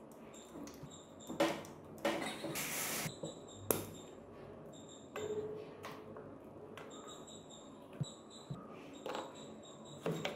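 Metal parts and hand tools being handled while a Bajaj three-wheeler engine is taken apart: scattered clinks, scrapes and sharp clicks as a bracket, pliers and a lever are worked on the crankcase and its shafts.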